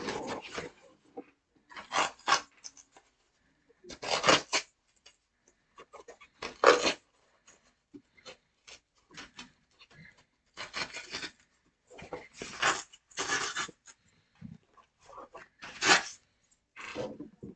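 A cardboard package being worked open by hand: short bursts of scraping and tearing at packaging, several seconds apart.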